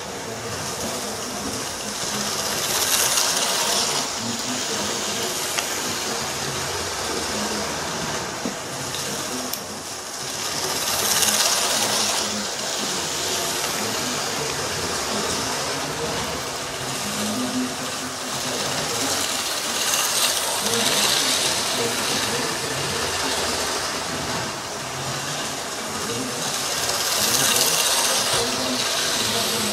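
Toy model train running round a loop of track: a steady small electric motor whirr with the rattle of wheels on the rails, swelling louder about every eight seconds as it passes close.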